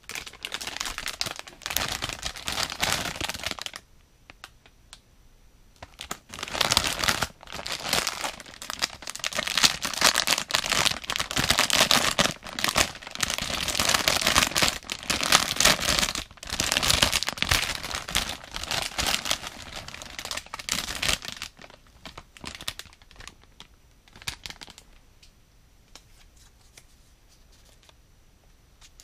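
Clear plastic bag crinkling and rustling as a plush toy is worked out of it by hand. It comes in a burst, pauses for a couple of seconds, then runs heavily past the middle before thinning to a few light rustles and stopping.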